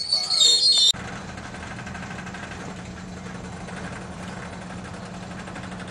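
Freight car wheels squealing on the rails, high-pitched and loud, cut off abruptly about a second in; then a steady, quieter low engine hum.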